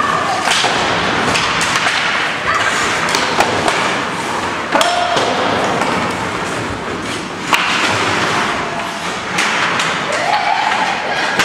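Ice hockey play on a rink: skates scraping the ice, with repeated knocks and thumps of sticks, puck and boards, and a few short shouts from players.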